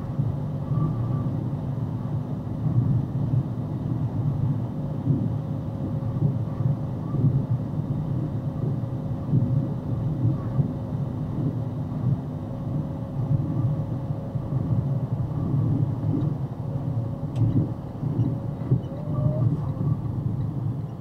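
Road and engine noise of a vehicle cruising at about 70 mph, heard from inside the cab: a steady low rumble of tyres on asphalt with a faint constant hum.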